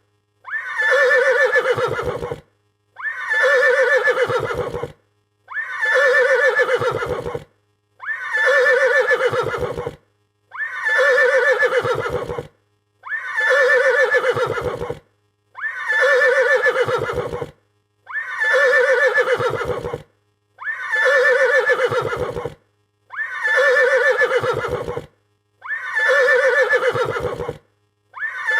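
A frightened horse neighing: the same shrill whinny repeated about every two and a half seconds, each call falling in pitch and breaking into a fast, low pulsing near its end.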